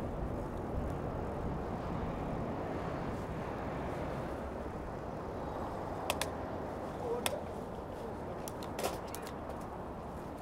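Steady city street traffic noise heard from a moving bicycle, with a few sharp clicks and taps in the second half.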